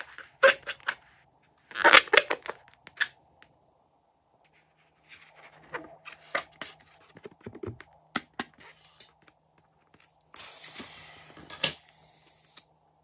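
Hands handling and squeezing a slime-filled rubber balloon: scattered clicks, taps and rubbing sounds. Near the end comes about two seconds of hissing, rubbing noise with one sharp click.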